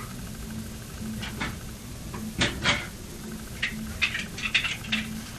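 A scattering of light clicks and knocks, with a small cluster of them near the end, over a steady low hum that pulses about once a second.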